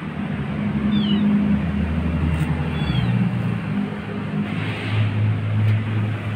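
Two short, high, falling mews from a kitten, about two seconds apart, over a steady low mechanical hum like an idling engine.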